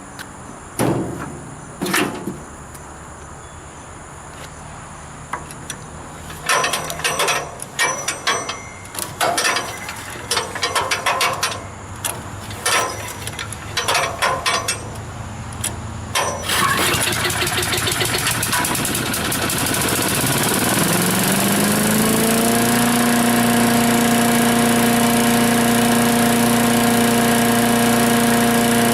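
Cold start of a Troy-Bilt wood chipper's 250 cc Briggs & Stratton engine, freshly fitted with a new carburetor. It cranks in several short bursts and catches about 16 seconds in. The engine then rises in pitch over a couple of seconds and settles into steady running.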